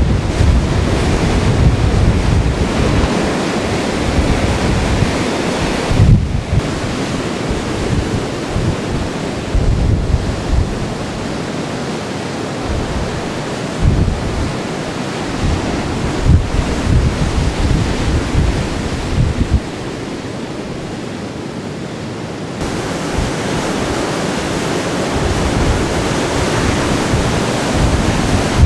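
Heavy hurricane surf breaking and washing up the beach, with strong wind buffeting the microphone in irregular gusts.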